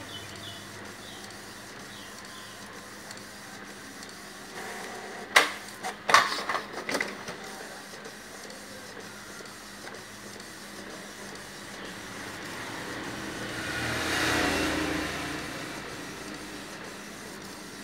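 Colour printer running as it prints sheets of business cards, with a cluster of sharp clacks about five to seven seconds in and a louder whirring pass that swells and fades around fourteen seconds in.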